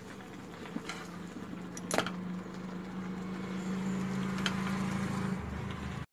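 Kitchen sounds: a steady low hum with a light hiss, and a few light clinks of utensils, the sharpest about two seconds in. The hum stops shortly before the end.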